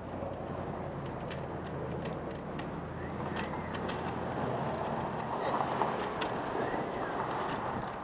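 City street traffic noise with a vehicle engine running as a steady low hum, under scattered light clicks and ticks.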